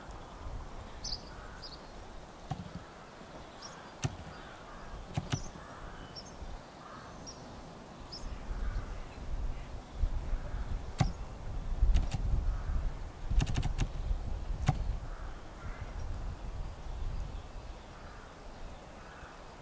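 A narrow-gauge train running slowly over station pointwork: a low rumble that grows louder midway, with irregular sharp clicks and clanks of wheels over rail joints and points. Small birds chirp in the first half.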